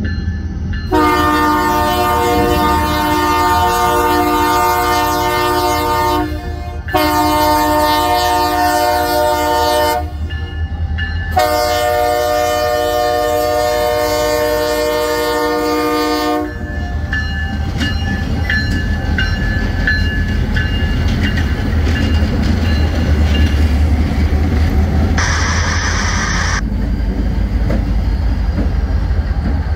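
Union Pacific diesel locomotive's multi-tone air horn sounding three long blasts for a road grade crossing. After the horn, the locomotives' diesel engines rumble and the wheels roll as they pass close by, with a brief hiss near the end.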